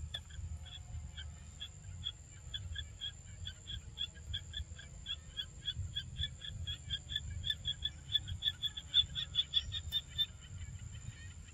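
An animal's call repeated as short high notes, about three a second and quickening toward the end before stopping, over a steady high-pitched insect drone.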